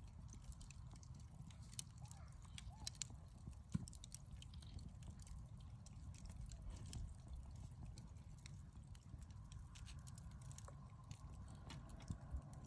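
Wood campfire crackling, with irregular sharp pops and snaps over a faint low rumble.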